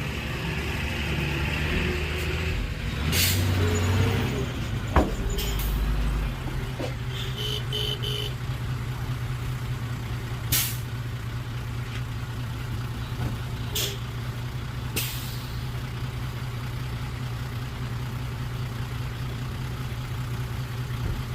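Heavy diesel engine of earthmoving equipment, its pitch shifting unevenly for the first few seconds, then running steadily at a low idle. Several short sharp hisses or clicks come over it.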